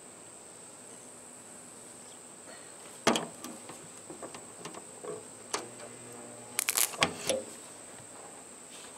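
A handful of sharp metal knocks with short ringing from a body hammer working a dent out of a car's body panel: one loud knock about three seconds in, another about halfway, then a quick cluster of taps near the end, over a faint steady high whine.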